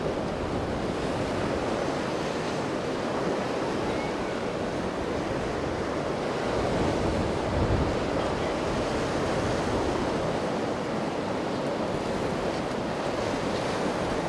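Surf and choppy inlet water rushing steadily, with wind buffeting the microphone; the water swells a little louder about halfway through.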